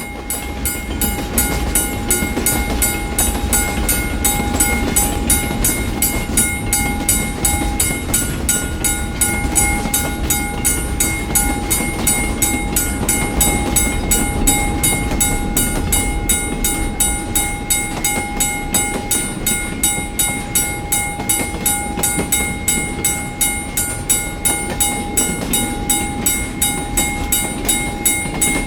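Railroad crossing bell ringing in a steady, even rhythm while a train passes with a continuous low rumble.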